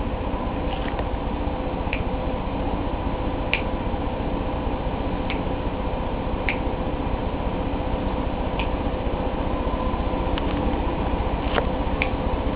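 Steady background hum and hiss with a faint steady tone, broken by short, faint, irregular ticks every second or two.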